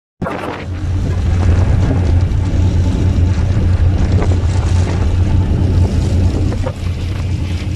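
Wind and the rush of the sea past a large ship under way at sea, over a steady low drone from the ship's engines.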